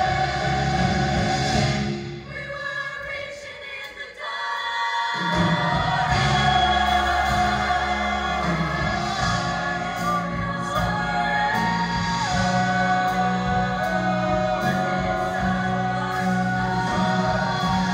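Show choir singing with instrumental accompaniment. About two seconds in the bass and accompaniment drop away, leaving a quieter passage; the full ensemble comes back in about five seconds in.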